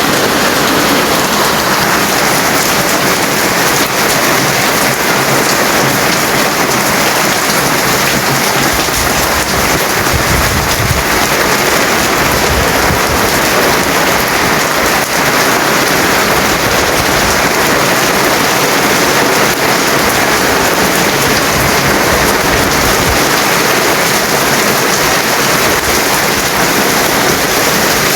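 Steady rain falling, a dense, even hiss, with a low rumble that swells for several seconds about a third of the way in.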